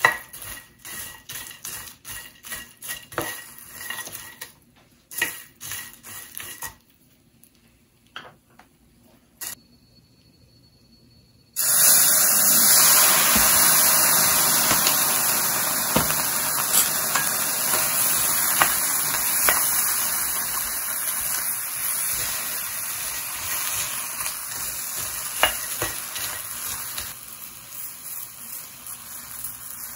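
A spatula scraping and clicking against a stainless steel pan as dried shrimp and pecans are stir-fried. About a third of the way in a sudden loud sizzle starts as soy sauce hits the hot pan, slowly dying down while the stirring goes on.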